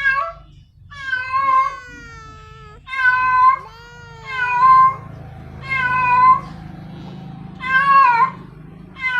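Female cat in heat calling for a male: a series of loud, drawn-out meows, about one every second and a half.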